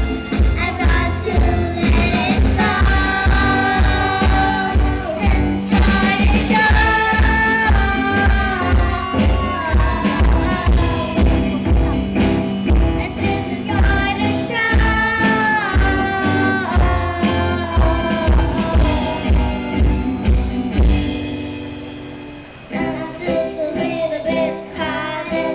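A children's band playing a pop song live: young girls singing into microphones over electric guitar, keyboard and a drum kit with a steady beat. About 21 seconds in the drums stop, the music drops away briefly, then comes back more lightly.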